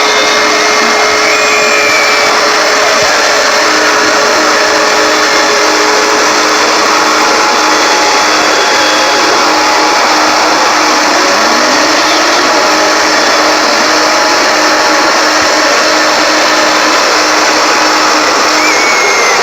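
Loud, steady static hiss from an emergency alert broadcast, with faint steady tones showing through it.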